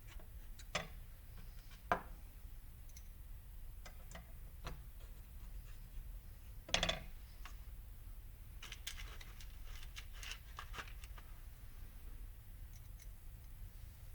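Small metal screws and washers clicking and clacking as they are handled and fitted into a drive hub pressure plate, with scattered light clicks, a sharper knock about two seconds in and another about halfway, and a quick run of light clicks a little later.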